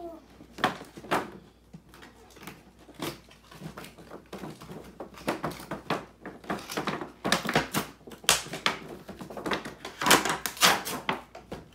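A cardboard toy box with a clear plastic window being handled and opened: irregular taps, clicks and crinkles of the cardboard and plastic. They come more often and louder in the second half.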